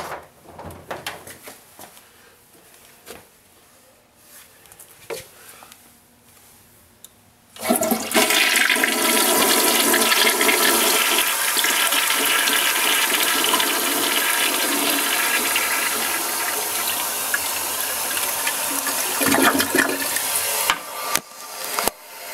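An American Standard Cadet toilet flushing. The rush of water starts suddenly about a third of the way in, runs steadily for around thirteen seconds, and falls away near the end. Before it come faint clicks and handling noises.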